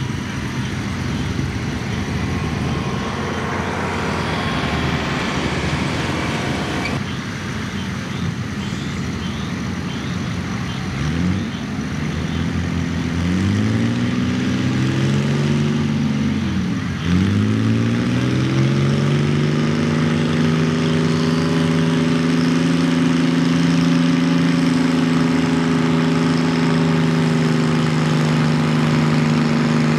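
Antique Farmall tractor engine revving up and down several times, dipping sharply once, then held at a steady high speed under load as it pulls the weight sled. Before that there is a stretch of steady background noise with no clear engine pitch.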